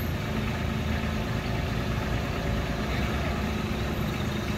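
Kubota compact tractor's diesel engine idling steadily.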